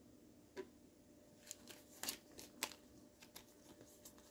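Basketball trading cards being handled and flipped from one to the next: a few faint, sharp snaps and clicks, the loudest about two to two and a half seconds in, over near silence.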